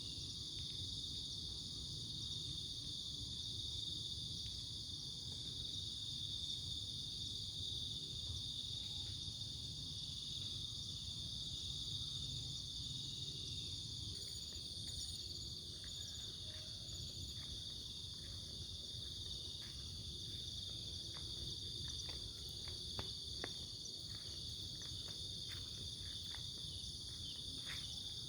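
Crickets chirring in a steady, unbroken chorus, over a low, even rushing underneath. A few faint ticks come through in the last several seconds.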